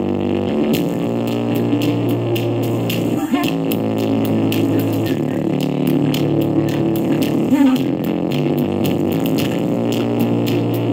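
Music played loud through a JBL GO 2 portable Bluetooth speaker with its EQ maxed for bass, so the sound is heavily distorted. Held, buzzing bass notes run under a fast ticking beat, with short breaks about three and seven and a half seconds in.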